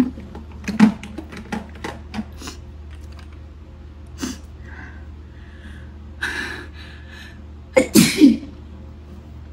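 A woman sneezing once, loudly, near the end, with a short sharp breath in a moment or so before it. Before that there are a few seconds of quiet with small clicks.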